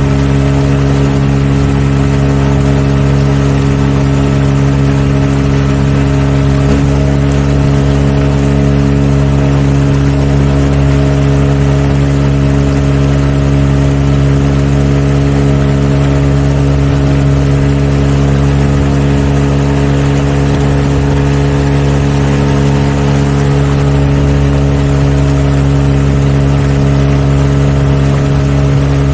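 Boat engine running at a steady cruising speed, holding one even pitch without change, with a hiss of wind and water over it.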